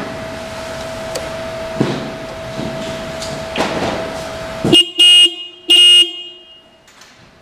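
Motorcycle electric horn of a 2005 Kawasaki ZZR600 sounding in two short blasts about a second apart, near five seconds in, tested with the ignition on. Before the blasts there is a steady faint tone with a few handling clicks.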